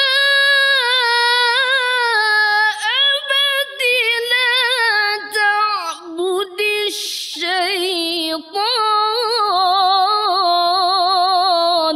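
A woman's Quran recitation in melodic tarannum style: one long drawn-out vocal line full of quick wavering ornaments, its pitch stepping gradually lower through the phrase. She breaks off briefly and takes a quick breath about seven seconds in, then carries on.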